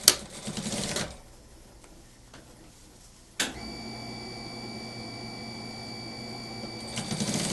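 Industrial sewing machine stitching in short runs: a burst of stitching in the first second, then near the end another. In between, a sharp click about three and a half seconds in is followed by a steady high whine.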